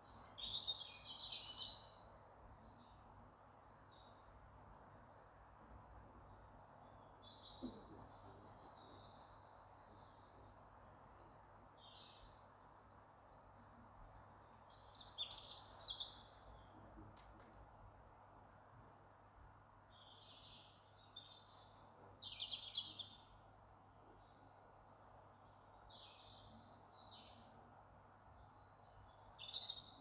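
Small songbirds calling in short, high chirpy bursts every few seconds, loudest about a second in, around eight seconds in and near the end, over a faint steady background hiss.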